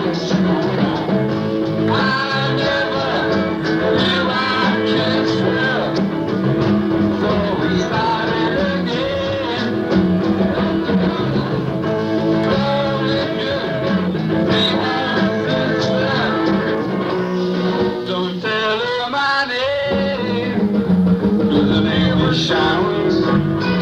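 Live rock band playing, with twelve-string guitar, electric guitar, bass and drums, in a rough-sounding recording dubbed from a worn cassette tape. About three quarters of the way through, the low bass notes drop away for a couple of seconds, then come back.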